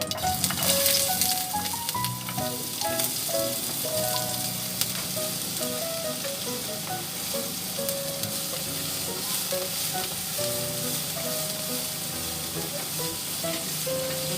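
Food frying with a steady, loud sizzle that stops abruptly at the end. A simple melody of background music plays underneath.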